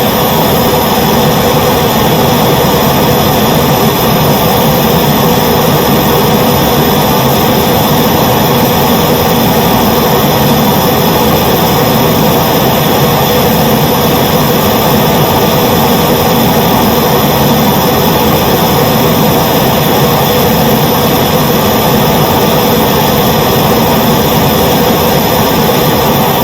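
Gas blowtorch flame burning steadily: a loud, even, continuous rushing hiss of the gas jet.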